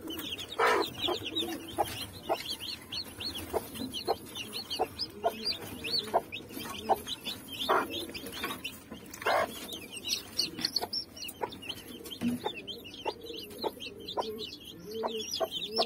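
Newly hatched chicks peeping constantly in short, high chirps, with the mother hen clucking low a few times, mostly near the end. Scattered light taps sound among them.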